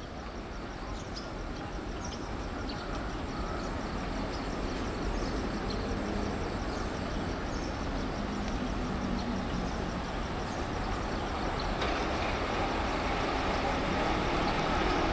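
Diesel locomotive hauling a passenger train on approach, its engine drone and rail noise growing steadily louder.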